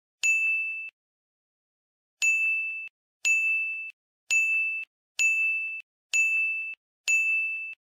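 A bright bell-like ding sound effect, played seven times. Each ding rings for just over half a second and then stops abruptly. The first comes near the start, and the other six follow about a second apart in the second half.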